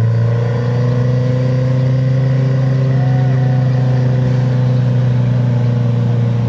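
Off-road 4x4's engine running hard at high, nearly steady revs, the pitch rising slightly and then easing a little.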